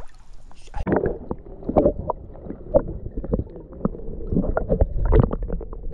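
Muffled underwater sloshing and gurgling as the camera is dipped under the creek surface about a second in, with a jumble of irregular knocks and bubbling pops from water moving against the camera housing.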